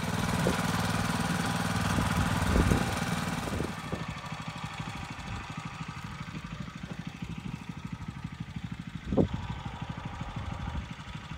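Small walk-behind tiller engine running as its tines churn soil. It is loudest for the first few seconds, then goes on more quietly with a fast even pulse.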